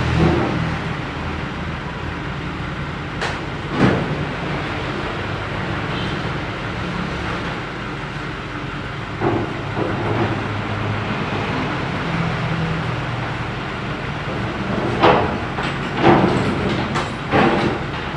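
Steady running of a vehicle engine, with several sharp clanks of steel loading ramps being handled and set down on paving, most of them close together near the end.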